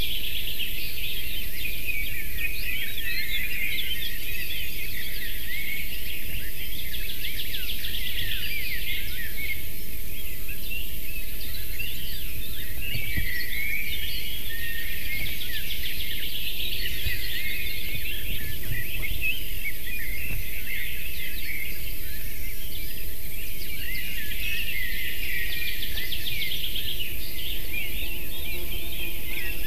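Chorus of small forest songbirds singing, many overlapping chirps and rapid trills, over a steady hiss.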